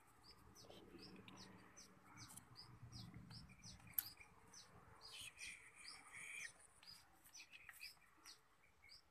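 Near silence with a bird's faint, short, high chirps repeating two or three times a second, and one sharp click about four seconds in.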